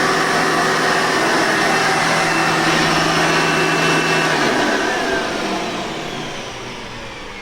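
Hoover Legacy 740 vacuum cleaner motor running steadily, then switched off about four seconds in, its whine falling in pitch and fading as the motor spins down.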